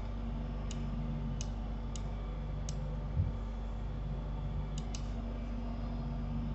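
Light computer mouse clicks, six of them spread unevenly, over a steady electrical hum. A soft low thump about three seconds in.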